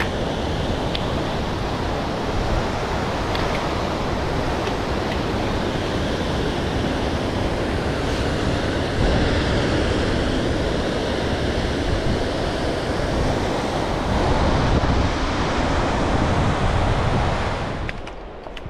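Steady rush of fast-flowing mountain water, dropping away suddenly near the end.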